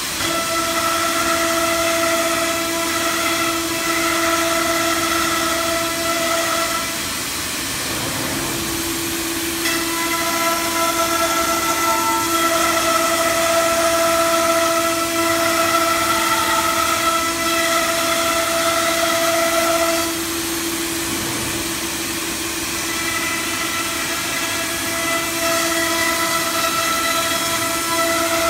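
The 9 kW spindle of an ATC CNC router running at high speed and milling a wood panel: a steady high whine with several overtones over a hiss. About seven seconds in, and again about twenty seconds in, it gets quieter for two to three seconds as the higher tones fade.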